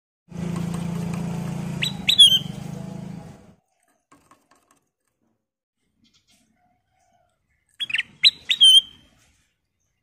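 Ruby-throated bulbul (kutilang emas) giving short, sharp chirping calls: a couple of notes about two seconds in, and a quick run of four or five near the end. A low steady hum sits underneath for the first three seconds.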